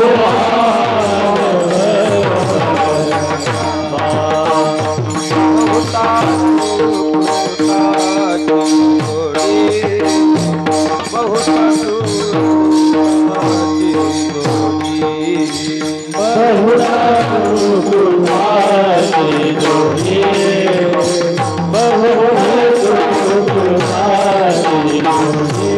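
Varkari bhajan accompaniment: a drum and a fast, steady beat of hand cymbals under a melody with a long held note for much of the first half, then a wavering melody line from about two-thirds of the way in.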